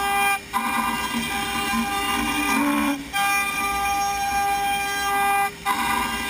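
CNC router spindle of a Format4 machining centre running with a steady high-pitched whine while milling wood. The sound drops out briefly about every two and a half seconds, about half a second in, near three seconds and again near five and a half seconds.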